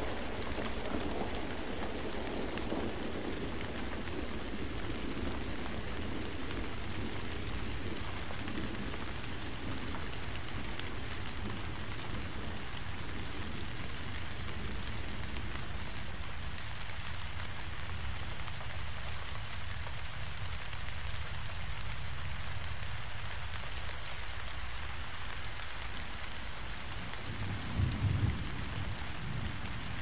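Steady heavy rain falling, with low rumbles of thunder over the first several seconds and a short, louder rumble near the end.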